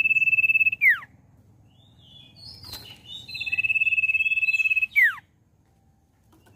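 Common iora singing. It gives a long, level whistle that ends in a sharp downward slur, about a second in, then a few short chirps, then the same long whistle and drop again at about five seconds.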